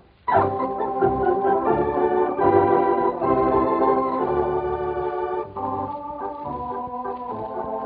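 Organ playing a medley tune: sustained chords over a pulsing bass line. It comes in after a brief gap about a third of a second in.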